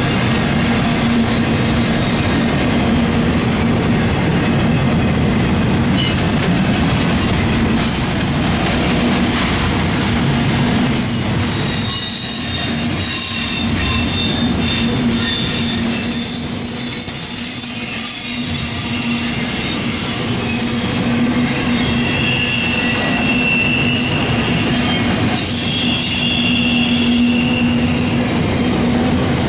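Norfolk Southern double-stack container cars rolling past, their steel wheels making a steady rumble on the rails. High-pitched wheel squeals come and go from about eight seconds in.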